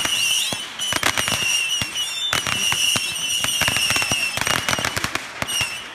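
Fireworks and firecrackers going off in a rapid, irregular string of cracks and pops, with a steady high whistle running under them.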